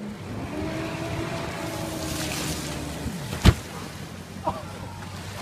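Motorboat engine running over rushing water and wind, its steady tone dropping away about three seconds in, followed by one sharp thump.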